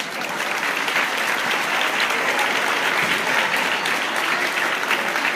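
Audience applauding as a song ends: dense, steady clapping from many hands.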